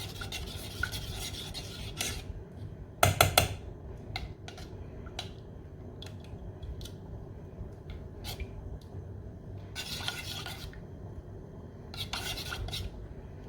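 A spoon scraping and stirring against a dish, with a loud short clatter of dishware about three seconds in, and more brief bouts of scraping later on.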